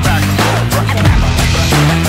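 Background music with a heavy drum beat and a stepping bass line.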